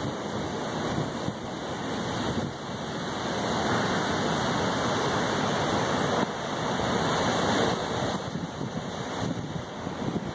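Rough ocean surf surging and breaking against the boulders of a rock jetty: a continuous rushing wash that swells louder through the middle and eases near the end.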